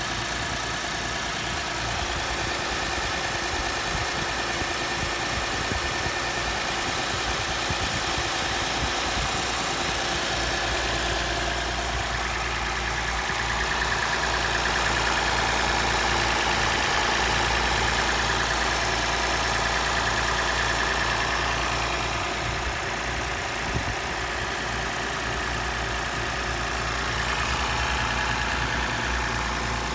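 Toyota Mark X 130-series 250G's 2.5-litre V6 idling steadily, heard up close in the open engine bay; the engine is still cold at −3 °C.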